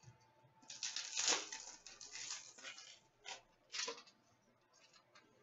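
Trading cards being handled on a glass counter: a dry rustling slide of cards for about two seconds, then two short flicks.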